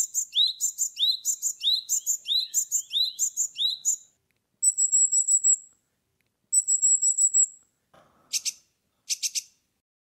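Japanese tit singing its mate-attraction song: a two-note phrase repeated about twice a second for some four seconds. Then two short, very high rapid trills and, near the end, a few harsh buzzy calls.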